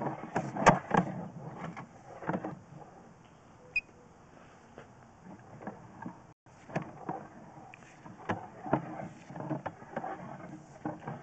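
Irregular knocks and clatter of a sewer inspection camera's push cable being fed through the pipe. A short electronic beep sounds a little before four seconds in, and the audio cuts out briefly a little past six seconds.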